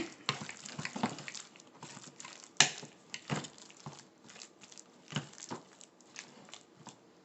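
Thick rye dough being stirred and scraped in a bowl: soft squishing and crackling with a few sharp knocks of the utensil against the bowl, the loudest about two and a half seconds in.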